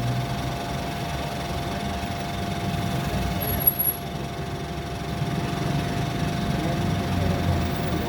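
Steady low mechanical rumble like a running motor, with a constant hum tone over it and a short sharp click about halfway through.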